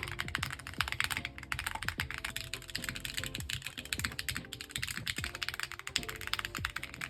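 Fast typing on a custom mechanical keyboard: a dense, continuous run of key clacks, over background music.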